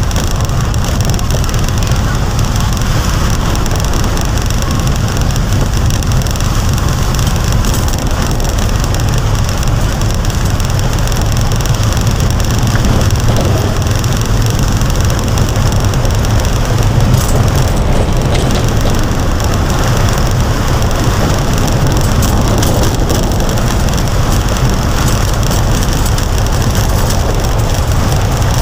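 Steady low rumble of a motor vehicle driving through heavy rain, with an even hiss of rain and wet road over it.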